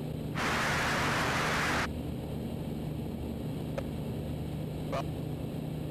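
Ikarus C42 microlight's engine droning steadily through the headset intercom, with a burst of static hiss about half a second in that lasts about a second and a half, then two faint clicks.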